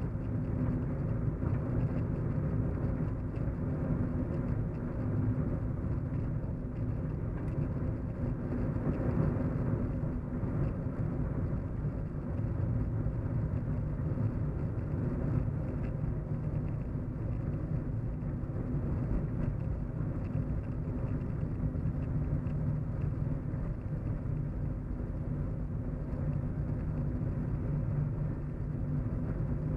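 Steady low hum and road rumble heard from inside a moving car, an even drone with no sharp events.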